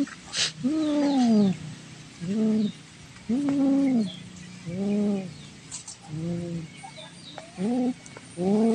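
Domestic cat making low, drawn-out growling moans through a mouthful of prey, a lizard clamped in its jaws; about seven calls, each rising and falling in pitch, roughly once a second.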